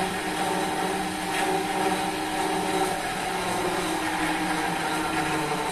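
Wood lathe running at speed with a wooden blank spinning between centres, a steady noise made of several tones. The noise comes from a failed spindle bearing.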